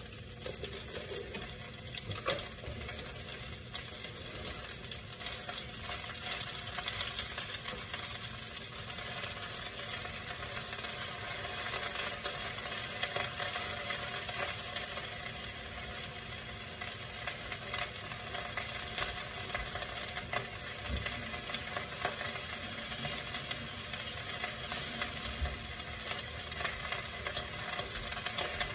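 Oil sizzling steadily in a hot frying pan, with light crackles throughout.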